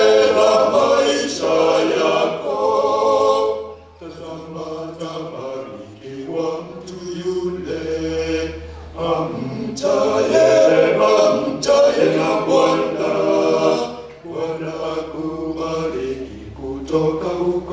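Male a cappella vocal group singing in close harmony, several voices together without instruments. The singing comes in phrases, dropping to a softer passage about four seconds in and swelling back up again.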